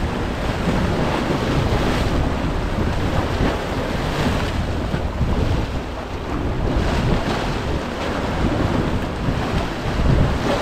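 Choppy sea waves washing and breaking against a rocky shoreline, with strong wind buffeting the microphone into a heavy low rumble.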